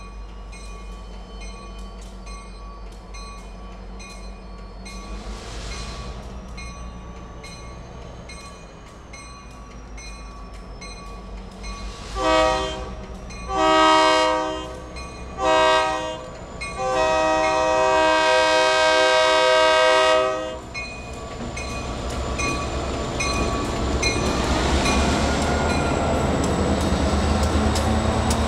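Diesel freight locomotive's multi-chime air horn sounding four blasts about halfway through, the last one held for about four seconds: the long, long, short, long grade-crossing signal. Afterwards the locomotive's diesel engine rumbles louder and louder as it draws up and passes close by.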